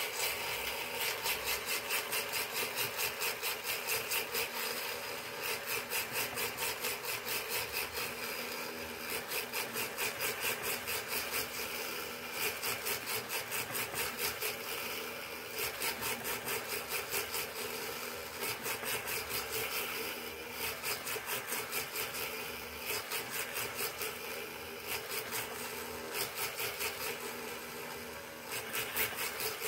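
Small drill spinning a thick copper wire against sandpaper on a wooden block, grinding the wire's end into a soldering iron tip. A steady motor whine runs under a rasping scratch that swells and fades about three times a second.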